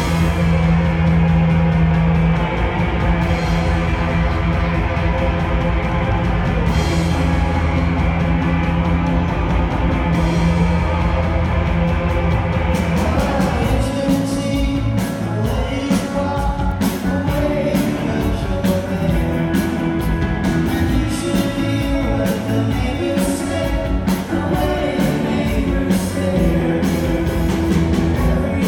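Live rock band playing. Held chords ring over a sustained bass note, then the drums come in about halfway and the playing gets busier.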